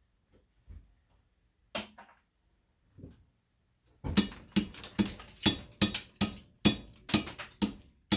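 Sharp metal knocks on a lighting ballast as it is broken apart for its copper wire. A few single knocks come first, then from about halfway through a quick run of about ten hard strikes, two to three a second, each with a short ring.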